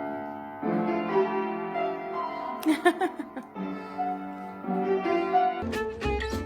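Background music with held keyboard notes. Near the end, a different track with a deep bass comes in.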